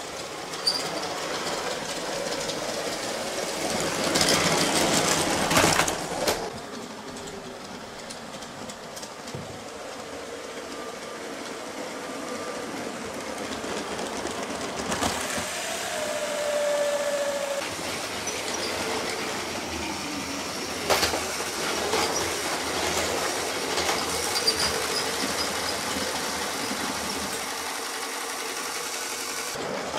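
Motorized Lego trains running on plastic Lego track: a steady whirring rumble with wheels clicking over the track joints. A louder clattering stretch comes about four to six seconds in, with a few sharp clicks later on.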